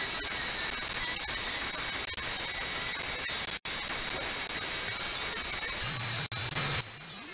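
Medium-wave AM reception on an SDR receiver with a Mini Whip active antenna: steady hiss and static with a high-pitched heterodyne whistle that drifts slightly down, the station buried in noise and interference. The level drops a little near the end.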